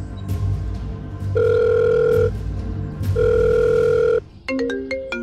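Phone-call sound effect over background music: two long, steady beeps of a calling tone, each about a second, then a quick ringtone melody of short notes starting about four seconds in.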